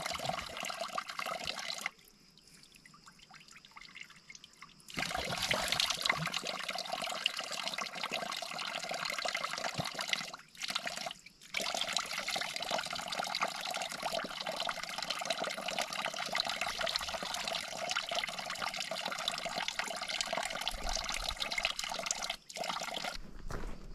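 Running water, a steady rushing and trickling. It is much quieter from about two to five seconds in and drops out briefly a few times.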